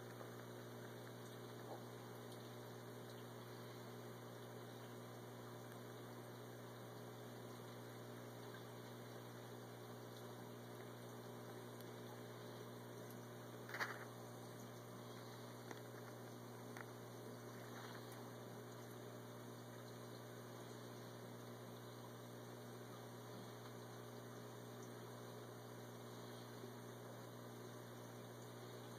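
Faint, steady low electrical hum, with one short click about halfway through.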